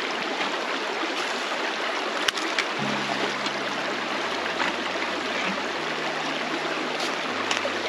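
Shallow river rushing steadily over rocks. A single sharp click comes about two seconds in, and faint low steady notes that change pitch every second or so start about three seconds in.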